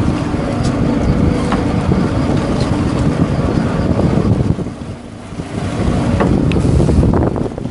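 Sport-fishing boat's engines running with wind buffeting the microphone, a dense low rumble that dips briefly about five seconds in and then builds again.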